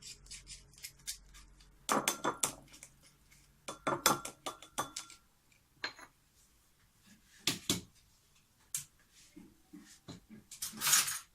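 Kitchen utensils, a spoon against dishes and a strainer, clinking and scraping in a few short bursts of clicks, with a longer scrape near the end.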